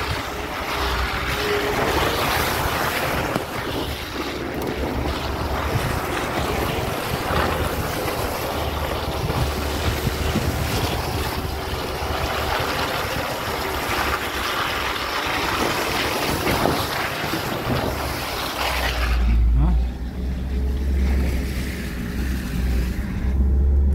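Lada Niva Legend's 1.7-litre four-cylinder engine pulling slowly in low range with the centre differential locked, on a wet, muddy dirt track, under a steady rushing noise from the tyres and the open window. About 19 seconds in the rushing drops away, leaving mainly the engine's low drone.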